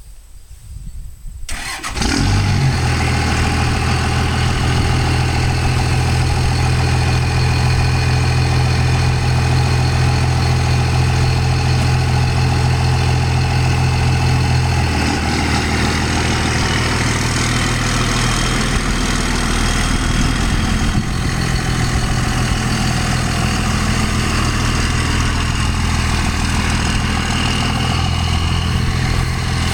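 An engine starts about two seconds in and then runs steadily at idle, its note changing about halfway through.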